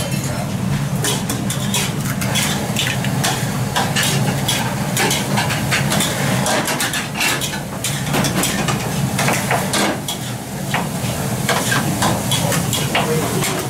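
Egg fried rice being stir-fried in steel woks: metal spatulas and ladles repeatedly scraping and clanking against the pans over a continuous sizzle, with a steady low hum underneath.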